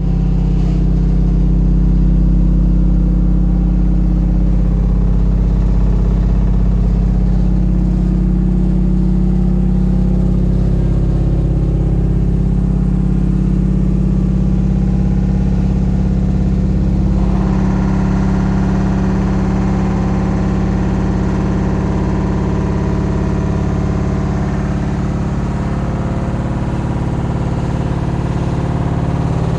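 LG ThinQ WM12WVC4S6 washing machine spinning at 1000 rpm, a loud, steady low hum from the drum and motor. About 17 seconds in, a harsher, noisier layer joins on top of the hum.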